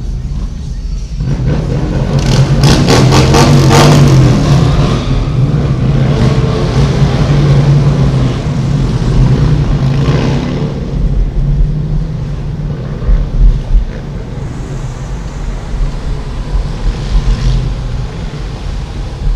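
Motorcycles pulling away from an intersection, their engines revving loudest about two to four seconds in, over the steady engine and road noise of the following car, heard from inside its cabin.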